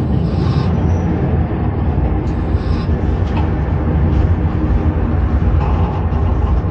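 Electric railcar running along the track, a steady low rumble of wheels on rails heard inside the driving trailer's cab, with a few faint ticks.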